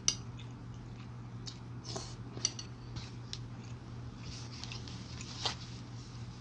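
Close-up eating sounds from a person eating ginseng chicken soup. Right at the start there is a sharp slurp as tender chicken and broth are sucked off a spoon, then a few scattered mouth clicks while chewing. It all sits over a steady low hum.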